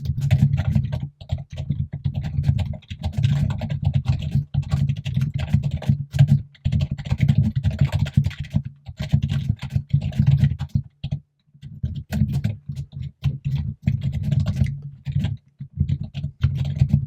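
Rapid, continuous typing on a computer keyboard, close and loud, with a few short pauses, the longest about two-thirds of the way through.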